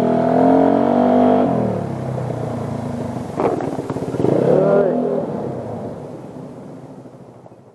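Motorcycle engine under way, its pitch climbing, then dropping as the throttle eases off about a second and a half in. It picks up and falls back again briefly a little later, then fades away.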